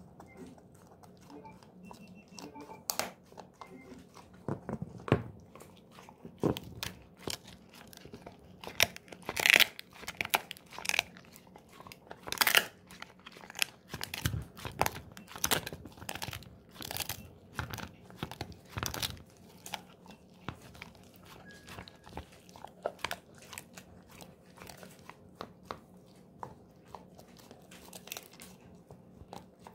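A golden retriever chewing a dried pig ear: irregular crunches and cracks as its teeth break the hard, brittle treat, loudest and thickest about a third of the way in.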